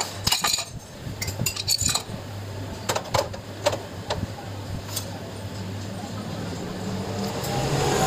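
Metal hand tools and small engine parts clinking and tapping against each other and the engine, a cluster of sharp clinks in the first two seconds and a few more around three to four seconds in, over a steady low hum.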